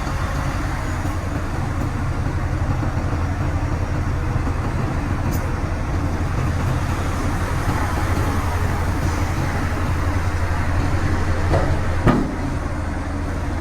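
Heavy diesel dump truck engine running steadily with a low drone, with one brief louder thump about twelve seconds in.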